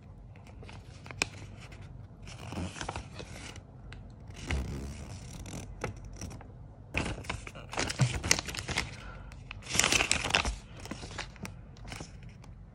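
Folded paper instruction sheet being unfolded and handled, crinkling and rustling in several bursts, loudest about eight and ten seconds in.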